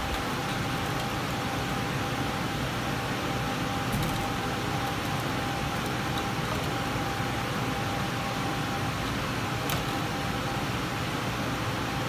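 Steady mechanical hum with a constant whine running through it. A couple of faint clicks, about four seconds in and near the tenth second, as insulation is stripped from the cables at the switch box.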